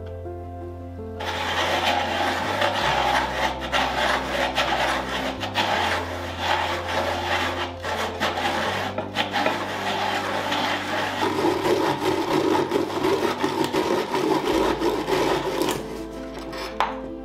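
Hole saw turned by a hand brace cutting through a wooden board: a continuous rasping grind with rapid scraping strokes. It starts about a second in and stops shortly before the end.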